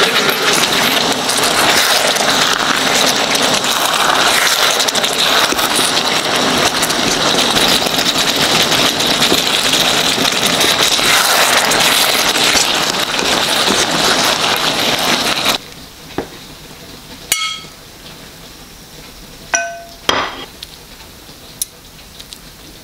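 Soybean meat, onion and carrot sizzling and bubbling in sauce in a wok while being stirred with a spatula. The frying stops suddenly about two-thirds through, followed by a few light clinks of a utensil against a ceramic plate, one of them ringing briefly.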